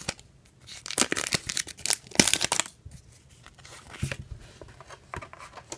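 Foil wrapper of a Pokémon booster pack being torn open and crinkled by hand: a series of short, sharp rips, the loudest a little after two seconds in.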